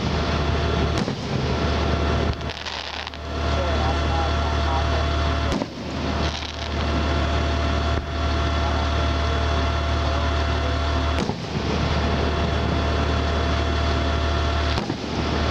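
Fireworks shells bursting as about five sharp cracks a few seconds apart, over a loud, steady engine-like drone.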